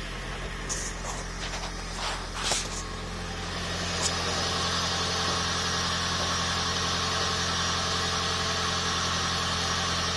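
2010 Toyota Prius 1.8-litre four-cylinder petrol engine running with the knocking and rattling it has developed, a steady low hum broken by a few sharp clicks in the first few seconds. About four seconds in, a louder steady rushing noise comes in and holds.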